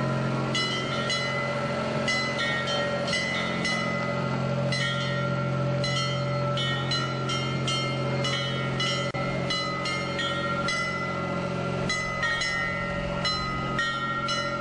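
Bagpipes playing: a steady drone underneath and a chanter melody of short, quickly changing notes above it.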